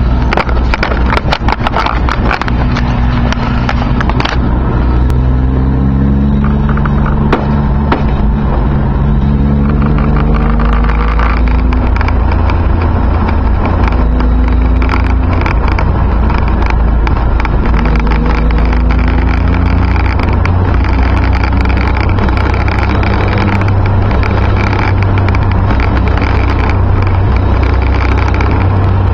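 A car driving, heard from inside the cabin: a deep, steady engine and road rumble with tyre noise from a wet road. In the first two-thirds the engine note climbs and falls several times as it works through the gears, then it settles. Scattered light ticks and rattles sound over it.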